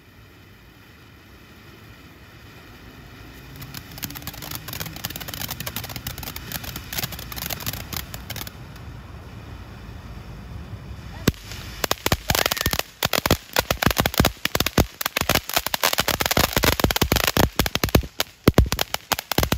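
Ground fountain firework spraying sparks with a steady hiss. About halfway through, a sharp crack comes, and then it turns to dense, rapid crackling.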